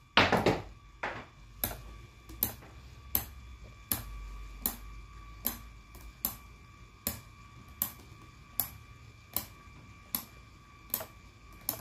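Ratchet mechanism of a 19 mm Craftsman V-Series 72-tooth reversible ratcheting combination wrench clicking as a test machine turns it under a backdrag pull. There is a louder burst at the very start, then single sharp clicks about 1.3 times a second over a faint steady hum.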